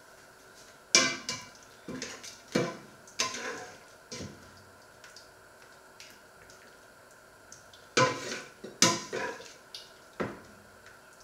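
Metal ladle knocking and clinking against a stainless steel stockpot and a porcelain bowl while soup is ladled out. The knocks come in two bunches, several in the first few seconds and more about eight seconds in, with a quiet gap between.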